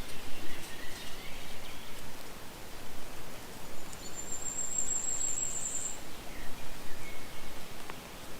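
Birdsong: a high, thin trill lasting about two seconds, starting about four seconds in, with a few softer chirps around it over a light rustle.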